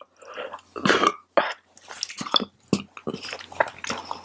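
A woman coughing and clearing her throat about a second in, set off by the spicy fried rice she is eating, followed by short chewing and mouth clicks.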